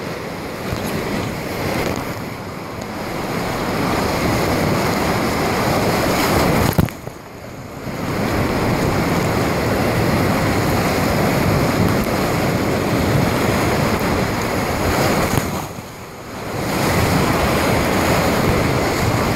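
Whitewater rapid rushing steadily, dipping quieter briefly about seven seconds in and again about sixteen seconds in.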